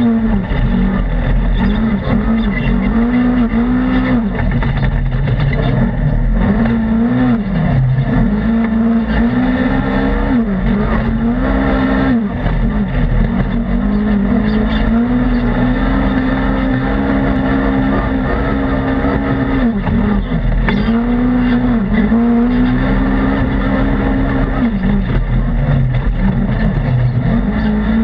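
Polaris RZR XP 1000's parallel-twin engine at racing speed, heard from inside the open cab: held at high revs under throttle, its pitch dropping sharply and climbing back again about a dozen times as the throttle is lifted and reapplied.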